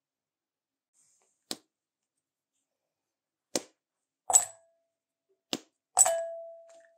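Squares of dark chocolate snapped off a bar with three short cracks, and the pieces dropped into an empty Pyrex glass bowl with two clinks. The second clink leaves the bowl ringing for about a second.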